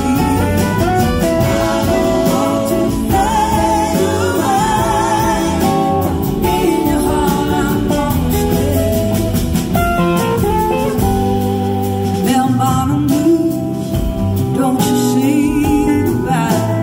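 Live band playing: a woman singing lead over electric guitars, bass guitar and drum kit.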